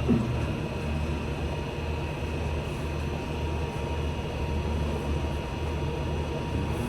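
Steady low mechanical drone of a running engine or motor, with a faint steady hum above it.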